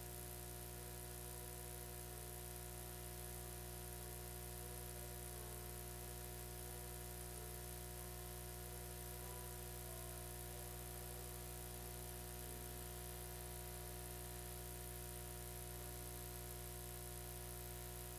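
Faint music, a slow line of single notes, heard under a steady electrical hum.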